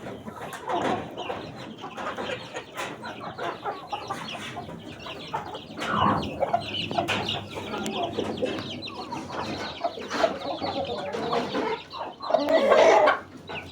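A flock of chickens clucking, many birds calling over one another, with one louder call near the end.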